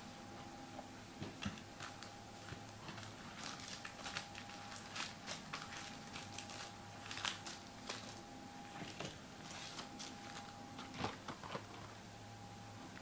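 Foil trading-card packs from a 2011 Panini Playbook football box crinkling and tapping as they are lifted out of the box's plastic tray and set down: a scatter of small rustles and clicks over a faint steady electrical hum.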